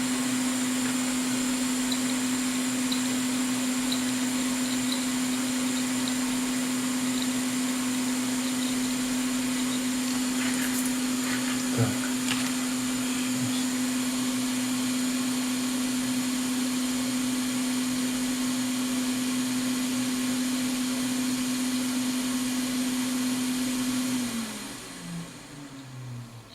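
Hot air rework station blower running steadily with a constant hum, then switched off about 24 seconds in, its fan winding down with a falling pitch.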